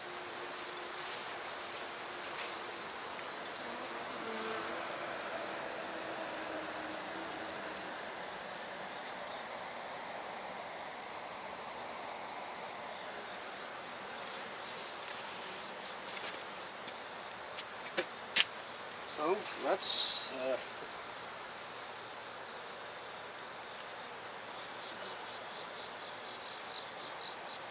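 A steady, high-pitched insect trill runs throughout over the softer buzz of honey bees around an open hive. A few sharp clicks come about two-thirds of the way through, as frames are handled.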